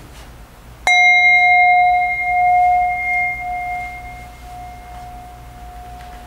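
A meditation bell struck once about a second in, giving a clear ringing tone that wavers as it slowly fades and is still sounding at the end. It signals the close of a moment of silent contemplation.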